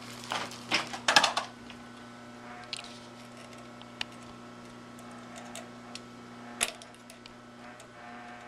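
Pliers clicking and scraping on the needle-clamp thumb screw of a Singer 20U industrial sewing machine as the screw, tightened up from running, is worked loose. A cluster of louder metal clicks and rattles comes in the first second or so, then scattered single clicks, over a steady low hum.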